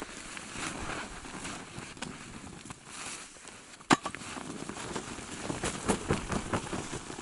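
Stiff, ice-crusted tent fabric rustling and crackling as it is folded and packed, with one sharp click about four seconds in.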